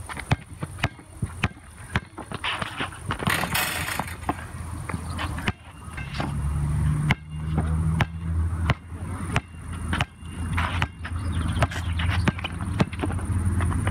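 Basketball being dribbled on an outdoor hard court: sharp bounces about twice a second, with scuffing of sneakers on the surface. A steady low rumble runs under it from about halfway through.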